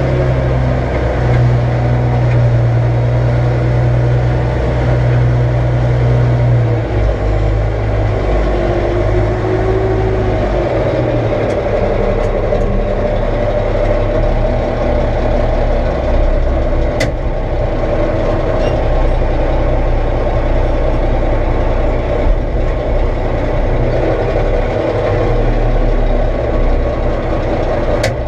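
Heavy diesel engine of farm equipment running steadily, its note shifting lower about seven seconds in, with a few light clicks later on.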